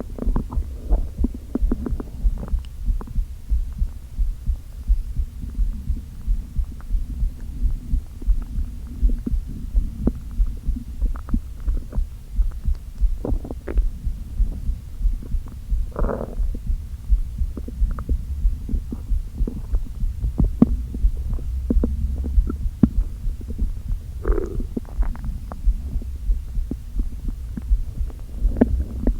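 Microphone pressed to a person's empty, hungry belly: a steady low pulse, like a heartbeat, runs throughout. Short stomach gurgles break in now and then, the clearest about sixteen seconds in and again about twenty-four seconds in.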